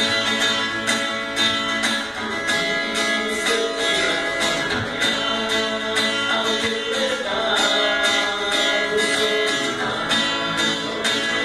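Guitar-led instrumental intro of a rap song over a steady beat of about two strokes a second.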